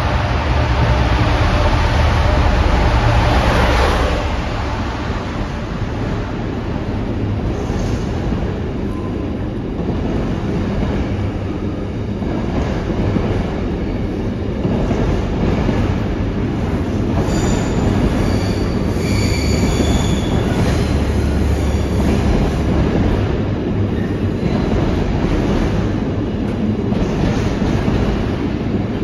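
Diesel freight locomotive passing at low speed, its engine loudest in the first four seconds, followed by a long rake of intermodal container wagons rolling by with a steady rumble. Wheels squeal on and off for a few seconds about two-thirds of the way through.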